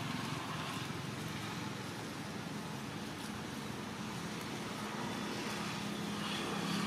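A steady low engine hum over a constant outdoor noise, growing slightly louder near the end.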